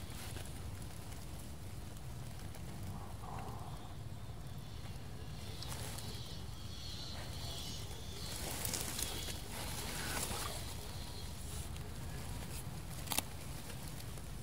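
Soft rustling and handling noise over a low steady rumble, louder in the middle, with one sharp click near the end.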